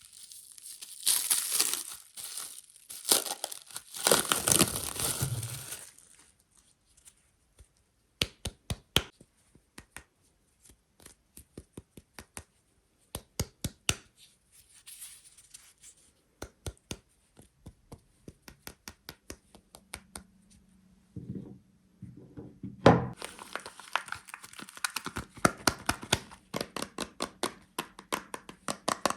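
Crisp soap wrapping being torn open and crinkled by hand, in dense crackling spells at the start and again from about 23 seconds in. Between them come scattered light clicks and taps, and a heavier knock marks the return of the tearing.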